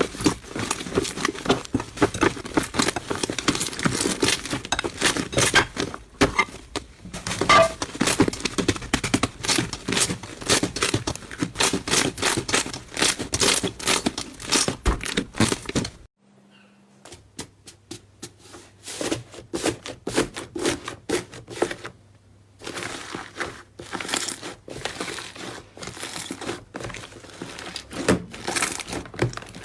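Slime being squeezed and pressed, giving a fast, dense run of sticky crackling clicks and pops. It breaks off briefly about halfway through and again a few seconds later, then resumes.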